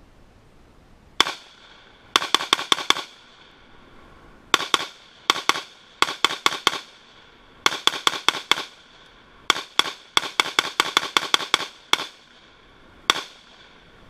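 Rifle fired in quick strings of shots, several a second, with a few single shots between, each crack ringing out briefly.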